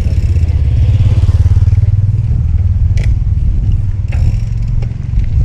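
Wind buffeting the microphone of a cyclist riding along, a loud fluttering low rumble that swells about a second in, with a couple of sharp clicks from the bike partway through.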